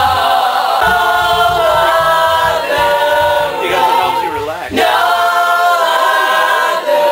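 A group of men and women singing a pop song together, loudly and with several voices at once, with a short break between lines about two-thirds of the way through.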